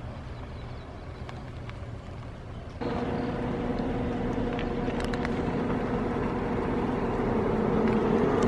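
Low outdoor rumble, then, about three seconds in, an engine starts to be heard running steadily with an even hum. The hum grows slightly louder toward the end.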